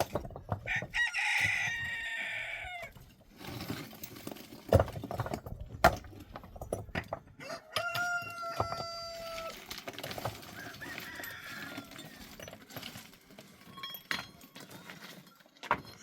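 A rooster crowing twice, one call about a second in and a second near the middle, with a few sharp knocks in between.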